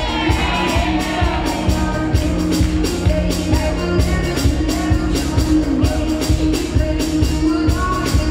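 Loud dance music with a steady beat and a bass line, a sung line bending in pitch near the start.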